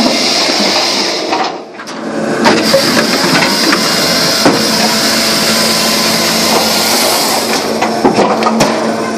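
SAMI drum cleaner (trommel) running with split birch firewood, giving a steady mechanical rumble and irregular hard knocks of logs dropping and tumbling against steel and onto the conveyor. The sound dips briefly about a second and a half in.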